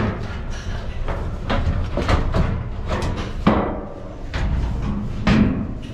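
Irregular knocks and clunks, several sharp ones spread a second or so apart, as the sheet-metal cover panels of a commercial ice machine are opened and handled.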